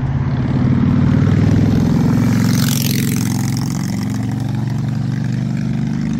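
A motor vehicle's engine running close by as it passes on the street, a steady hum loudest about a second in, with a hiss that falls in pitch around two and a half seconds in.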